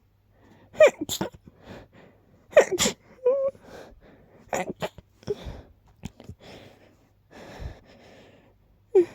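A person sneezing again and again, the loudest being two quick double sneezes in the first three seconds. Softer sneezes and gasping, catching breaths of a sneeze buildup follow.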